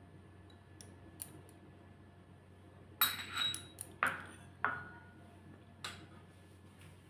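A metal spoon and glass bowls clinking: a quick cluster of ringing clinks about three seconds in, two more over the next second and a half, and a lighter one near the end.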